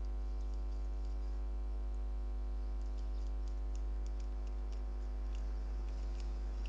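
Steady electrical mains hum with a buzzing ladder of overtones, picked up in the recording, with faint irregular ticks over it.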